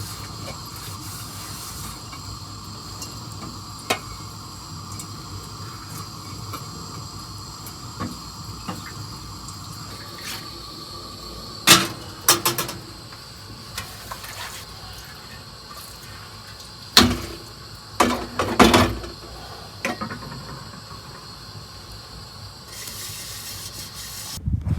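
A steady watery hiss, like running water or a steaming pot, broken by a few sharp knocks near the middle and again a little later.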